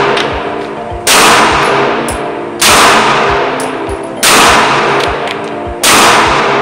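CZ P10C pistol fired four times at a steady pace, about one and a half seconds apart; each shot is loud and rings on with a long echoing decay in the indoor range. Background music plays underneath.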